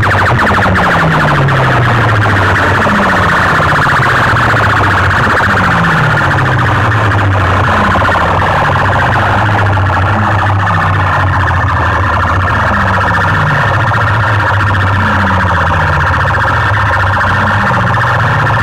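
Competition horn-loudspeaker rigs blasting an electronic siren-like wail at full volume, overloaded and harsh. Under it a deep tone falls in pitch again and again, about every two seconds.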